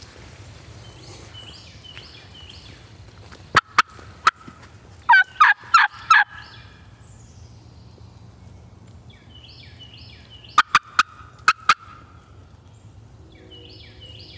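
Wild turkey gobbler calling in the woods. Sharp notes come about three and a half seconds in, then a loud rattling gobble about five seconds in, and another quick run of sharp notes about ten and a half seconds in.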